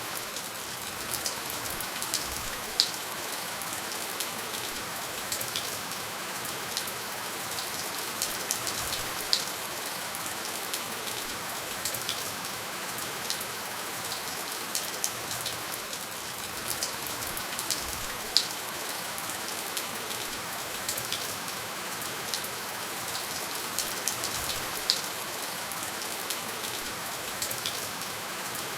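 Steady rainfall with no thunder, an even hiss of rain dotted with the sharp taps of individual drops landing close by.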